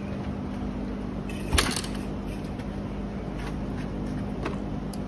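A single sharp clunk about a second and a half in, from a kick-start stroke on a 2006 Yamaha YZ450F four-stroke engine that turns over without firing. A steady low hum runs underneath, and a few faint ticks follow.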